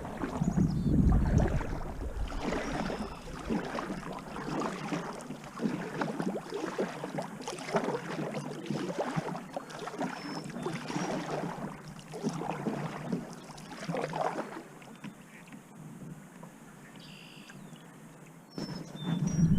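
Water splashing and lapping around a kayak, coming in irregular swells every second or two, then quieter for the last few seconds.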